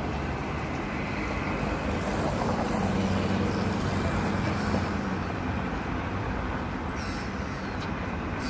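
Street traffic noise: a steady rumble of road traffic, with a vehicle engine growing louder and then fading a few seconds in.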